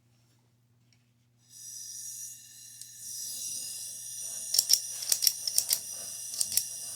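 A plumbing gas torch starts hissing about a second and a half in, as gas flows from the open valve. From the middle on, a quick irregular run of sharp clicks follows, a flint striker being struck at the nozzle to light it.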